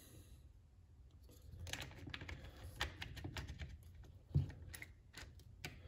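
Faint, scattered small clicks and rattles of the impact driver's internal parts (motor assembly and small plastic pieces) being handled, with one louder knock about four seconds in.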